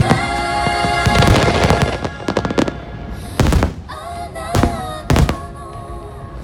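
Fireworks display finale: a dense run of rapid crackling and popping shells in the first two seconds or so, then three heavy booms in the second half, over music playing throughout.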